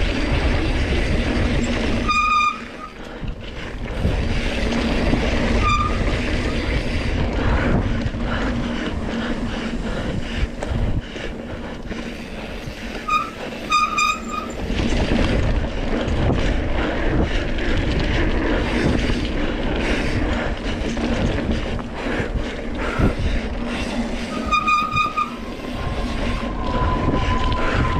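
Single-speed Surly Krampus mountain bike ridden hard over a bumpy trail: a continuous rough rush of tyre, rattle and wind noise on a jolting camera, broken by several short, high squeals and a longer steady squeal near the end.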